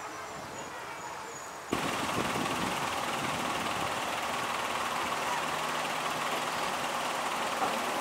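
Steady outdoor ambient noise: an even hiss without distinct events that comes in abruptly about two seconds in, after a quieter stretch.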